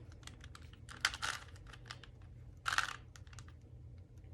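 3x3 Rubik's Cube being turned by hand: quick plastic clicking and clacking of its layers, with two louder rasping turns, about a second in and just before three seconds.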